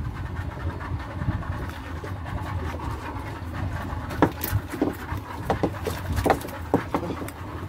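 Small fishing boat's engine running with a steady low drone. A few scattered knocks and taps come between about four and seven seconds in.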